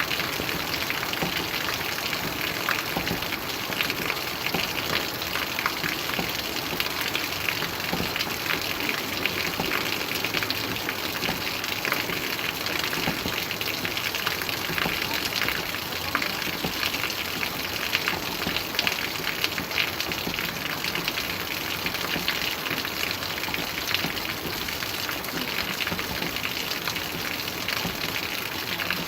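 Steady rain falling, a dense even hiss with many small drop patters.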